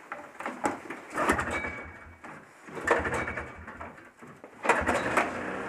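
1982 Yamaha Bravo BR250 snowmobile's single-cylinder two-stroke engine being pull-started, three tries about two seconds apart. The first two fire only briefly; the third catches, and the engine keeps running.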